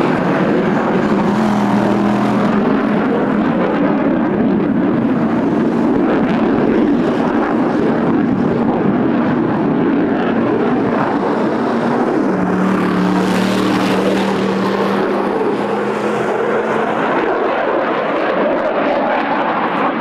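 Eurofighter Typhoon fighter jet flying a display pass, its twin jet engines giving a loud, continuous roar.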